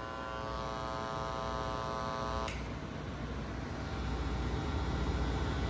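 Mains hum and buzz coming through a sound system, the typical noise of audio gear sharing an electrical circuit with ordinary outlets and lighting. A higher buzz cuts off with a click about two and a half seconds in, leaving a steady low hum that grows a little louder near the end.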